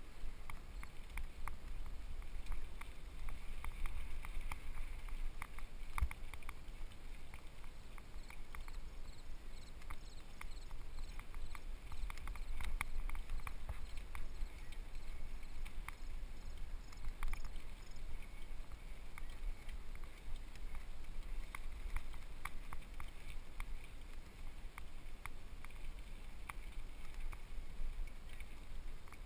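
Muffled riding noise from a mountain bike on dirt singletrack, heard through a helmet-mounted GoPro: a steady low rumble of wind and tyres, with frequent small clicks and knocks from the bike and the camera mount.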